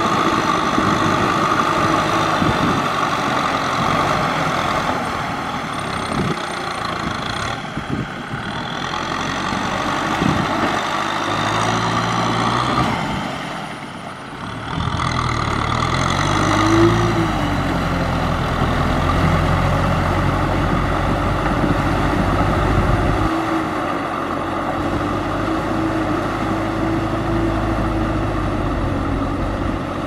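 Tractor's diesel engine running steadily while pulling a disc harrow through a flooded, muddy paddy. About halfway through the sound drops in level, then the engine note rises and falls once.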